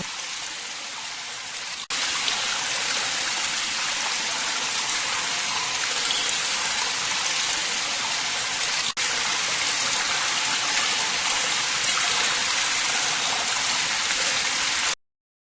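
Steady hiss of heavy rain, with two momentary dropouts about two and nine seconds in, cutting off suddenly just before the end.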